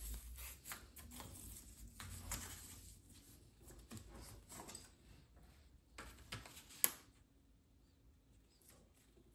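Faint handling noises: irregular rustling and light clicks, with one sharp click about seven seconds in, then quiet room tone.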